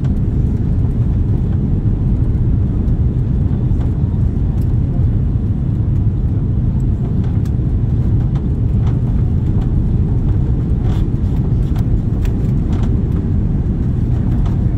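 Airbus A330 cabin noise in the last seconds of a landing approach over the runway: a steady low rumble of engines and airflow. Scattered light clicks and rattles come in through the second half.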